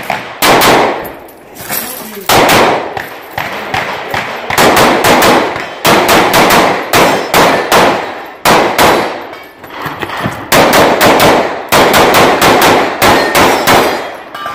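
Handgun fired in rapid strings of shots, several quick strings separated by short pauses.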